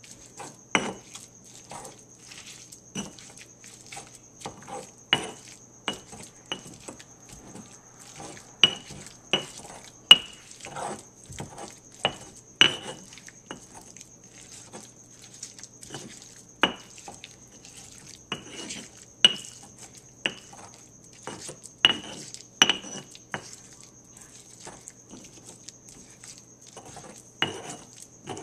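Stone pestle mashing food in a heavy stone mortar, knocking against the bowl in irregular sharp clicks, now and then two close together, over a faint steady hum.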